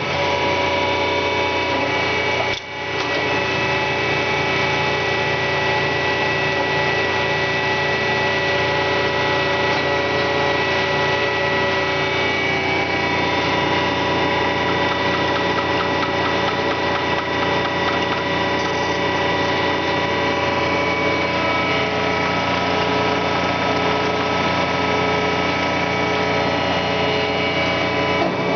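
A 10 HP Marvel 81A9 vertical band saw running under power, a steady machine hum and whine made of many held tones. The tones shift a couple of times as the blade speed is changed.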